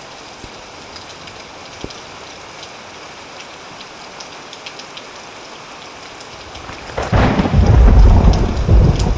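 Steady rain falling with scattered drops ticking close by, then about seven seconds in a loud, deep thunder rumble breaks in and keeps rolling.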